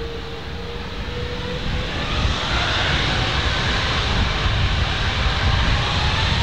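Boeing 777-200ER's Rolls-Royce Trent 895 turbofans spooling up to takeoff thrust: a deep rumble under a rising whine, growing louder about two seconds in.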